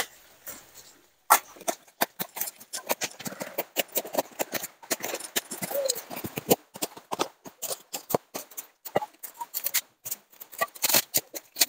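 Taped cardboard packaging being cut and torn off a motorcycle rim: a rapid, irregular run of rips, crackles and rustles starting about a second in.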